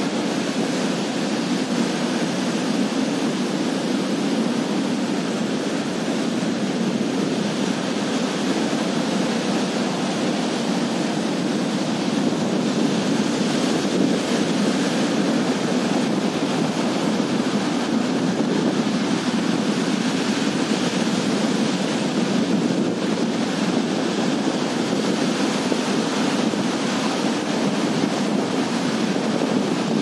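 Sea surf breaking and washing up a sandy beach in a steady rush, with wind buffeting the microphone.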